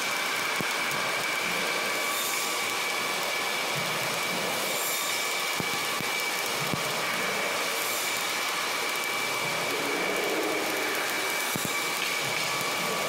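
Electric arc welding on steel: a steady crackling hiss from the arc as a bead is run, with a steady high whine underneath.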